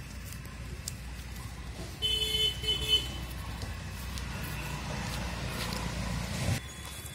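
A vehicle horn gives two short honks about two seconds in, followed by the low rumble of a motor vehicle passing, rising and then stopping suddenly near the end.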